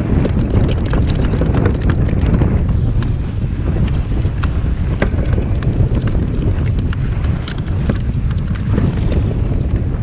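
Strong wind buffeting the microphone in a loud, steady rumble, with frequent sharp crackles of water splashing and spray hitting the kayak.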